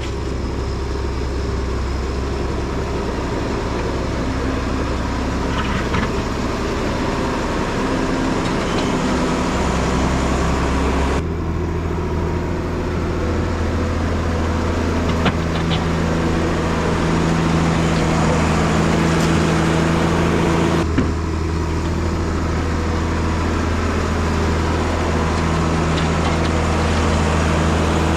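Engine of a snow-clearing machine running steadily under work, with a low, even hum. Its tone shifts abruptly about eleven seconds in and again about twenty-one seconds in.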